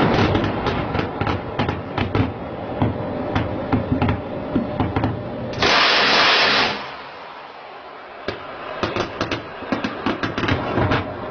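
Gunfire from a warship's guns: many sharp shots in irregular clusters, with a loud rushing burst of noise lasting about a second near the middle, then a quieter moment before more shots.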